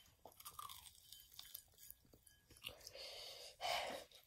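Faint close-up chewing of crispy fried chicken, the breaded coating crunching in small clicks, with a short, louder breathy noise near the end.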